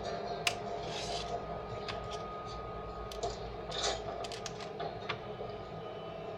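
Scattered light clicks with rubbing and scraping of small hard pieces, and two short hisses, about a second in and just before four seconds: the sounds of soldering a stained-glass lamp at the workbench.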